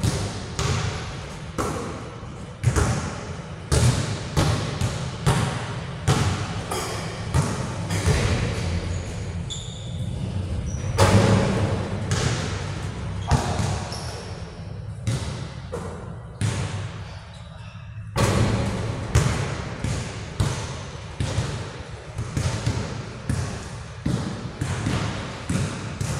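Basketballs bouncing on a hard indoor court, an irregular string of thuds about one or two a second, each echoing in the large hall.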